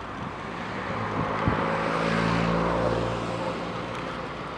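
Mooney M20J light aircraft's four-cylinder piston engine and propeller droning on landing approach, swelling about a second in and easing off toward the end.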